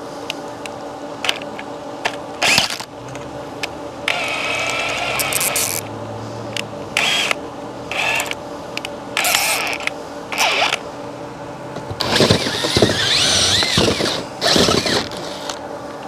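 Cordless drill driving a hole saw through house siding in stop-start bursts, the longest about a quarter of the way in and again about three quarters through, with clicks and knocks from the bit between bursts; this is the hole saw cutting through from the outside over a pilot hole.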